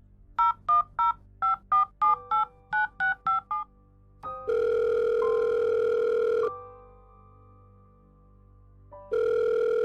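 Phone keypad tones as a number is dialled, about eleven quick beeps, followed by the ringback tone sounding twice while the call goes unanswered.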